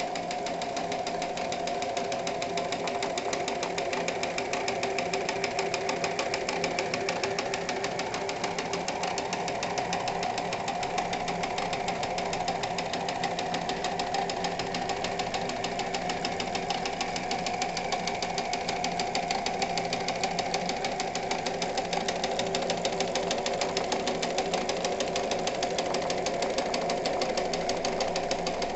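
Singer 306M electric sewing machine running steadily at speed: a rapid, even clatter of the needle mechanism over the steady hum of its motor.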